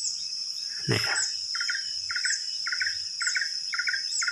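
Steady high insect drone, with a bird repeating a short chirp about twice a second from about one and a half seconds in, and a brief low sound about a second in.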